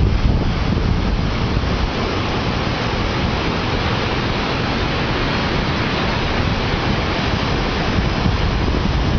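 Mountain waterfall: water falling in a steady, even rush. Wind on the microphone adds a low rumble near the start and again near the end.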